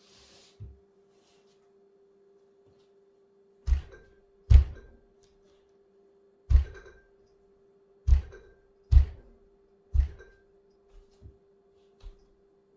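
Dull thuds of sock-clad feet stamping on a plush teddy bear lying on a laminate floor: six heavy stomps spread over about six seconds, then a few lighter taps. A faint steady hum runs underneath.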